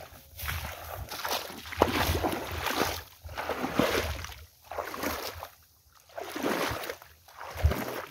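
Legs wading through shallow water, a sloshing swish with each stride, about six strides with short lulls between.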